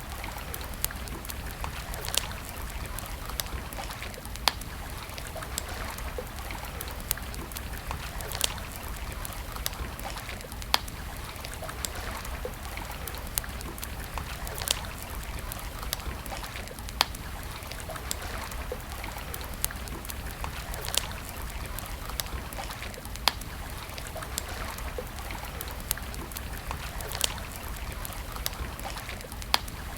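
Campfire crackling: irregular sharp pops and snaps, a louder one every couple of seconds among many small ticks, over a steady low hiss and rumble.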